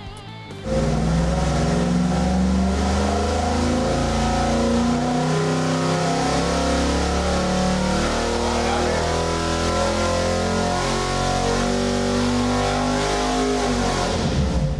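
A 410 cubic inch stroked Mopar Magnum small-block V8 with a single-plane intake and a four-barrel carburetor, running at full throttle on an engine dyno. It pulls up through the rev range from about 3,000 to 6,000 rpm, starting about a second in, on a power run after timing and carburetor tuning.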